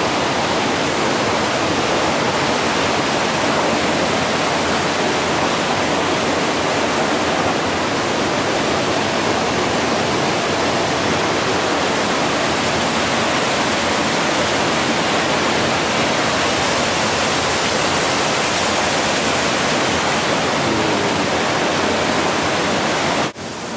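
Steady, loud rushing of water, an even hiss with no rhythm or pitch.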